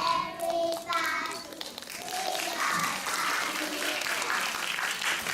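A few final held notes, then audience applause that starts about two seconds in and builds steadily.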